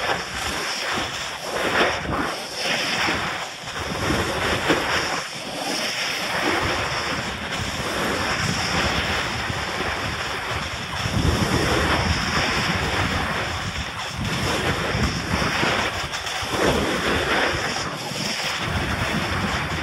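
Wind buffeting the microphone of a pole-mounted camera over the hiss of skis sliding and scraping through spring snow. The noise swells and eases every second or two with the turns.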